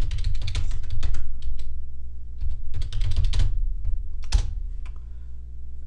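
Typing on a computer keyboard: two quick runs of keystrokes separated by a short pause, then one louder single key click, over a steady low hum.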